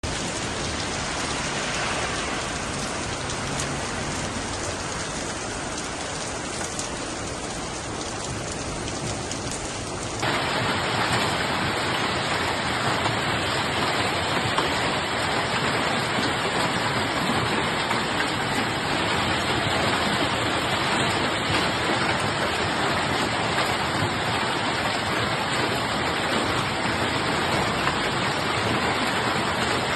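Heavy downpour of rain falling steadily. About ten seconds in it cuts abruptly to a louder stretch of the rain.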